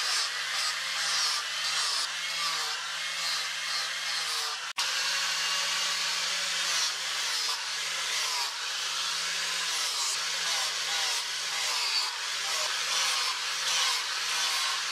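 Angle grinder with a sanding disc running against a wooden knife handle and the steel tang beneath it, grinding and smoothing the wood. Its motor hum sags briefly every couple of seconds as it is pressed into the work.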